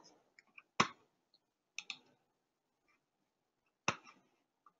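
A few sharp clicks over a video-call line: one about a second in, a quick pair near two seconds, and another near four seconds, with fainter ticks between.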